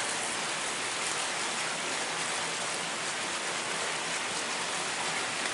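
A steady, even hiss of noise with no distinct events in it.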